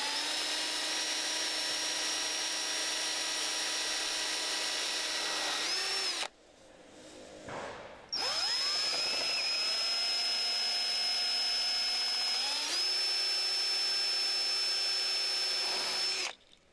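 Cordless drill with an 11/32-inch bit drilling through the steel bottom channel of a snowplow blade: two long runs of steady motor whine separated by a pause of about two seconds. Partway through the second run the pitch steps up and holds.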